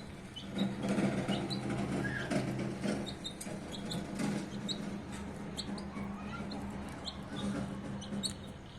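Baby chicks peeping, many short high cheeps scattered through, with soft rustling and a low steady hum underneath.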